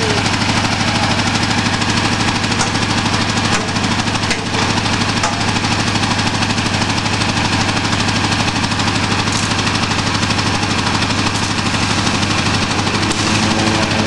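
Gravely garden tractor's engine running steadily at an even speed.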